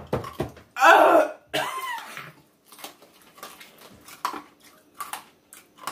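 A person coughing, two loud outbursts close together about a second in, brought on by eating very hot chicken wings; faint clicks follow.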